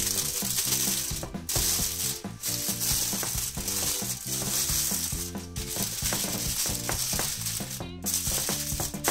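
Aluminium foil crinkling and crackling as hands fold and press it down around the edges of a baking dish, over steady background music.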